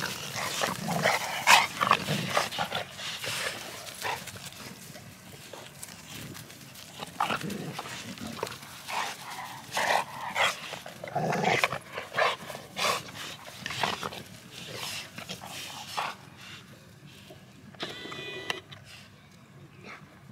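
American Bully dogs and puppies play-fighting, with irregular bursts of dog growls and yips mixed with scuffling. Near the end there is one drawn-out, pitched whine.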